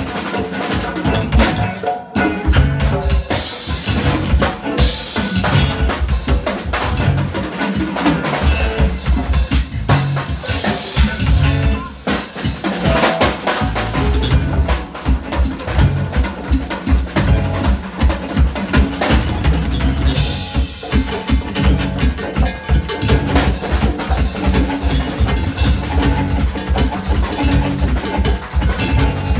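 Live jam band playing loud amplified music with a steady drum-kit beat, electric bass and electric guitars.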